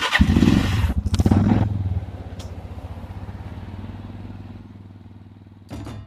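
Motorcycle engine revved hard twice in quick succession, then settling into a steady, fading run of firing pulses as it drops back toward idle. Sharp clicks start near the end.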